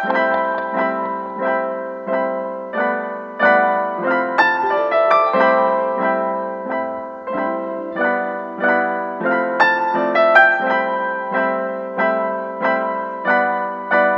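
Solo piano music: notes and chords struck at a steady, unhurried pace, each one ringing and fading.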